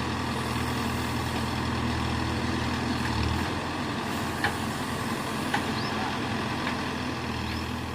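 Case 770EX backhoe loader's diesel engine running steadily while it works, its note changing about a third of the way in. A few short clanks come in the second half.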